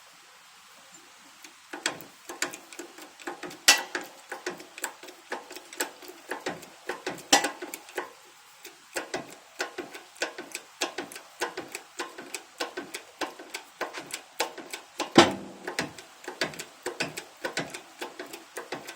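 Rain dripping: irregular drops hitting a hard surface, several a second and of varying loudness, starting about two seconds in.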